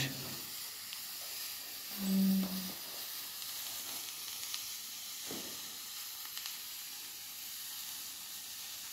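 Hot vulcanizing fire patch burning under a clamp on a rubber inner tube: a steady faint sizzling hiss as the patch's fuel pad burns to bond the patch over the puncture. A short low hum about two seconds in.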